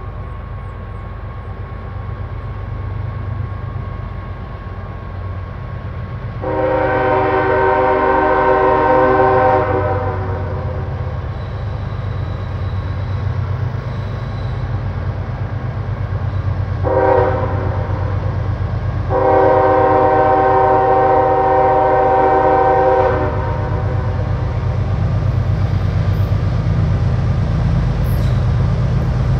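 Diesel locomotives of a heavy CSX coal train rumbling low throughout while the horn sounds a chord: a long blast about six seconds in, a short blast a little past halfway, then another long blast.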